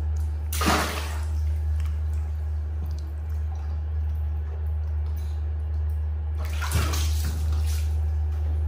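Water splashing in a bath, once about half a second in and again around six and a half seconds in, over a steady low hum.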